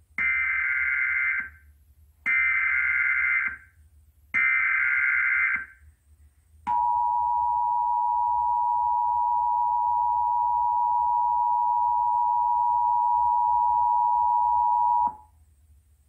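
Emergency Alert System tones played through a television: three short bursts of the screeching SAME data header, then the two-tone attention signal, held steady for about eight seconds, announcing a test tornado warning.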